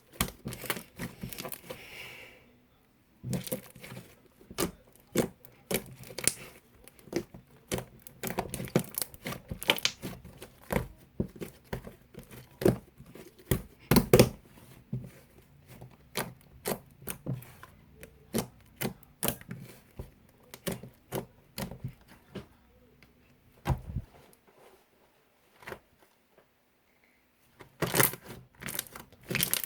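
Firm, stiff slime being squeezed, pressed and poked by hand, giving irregular crisp clicks and crackling pops, with a quieter, sparser stretch near the end.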